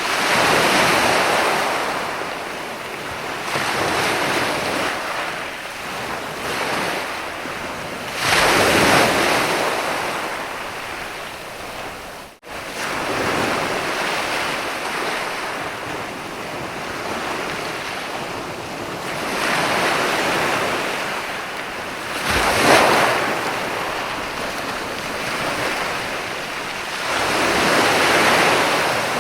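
Sea waves breaking and washing up a sandy beach, the surf swelling and fading in surges several seconds apart. There is a momentary break in the sound about halfway through.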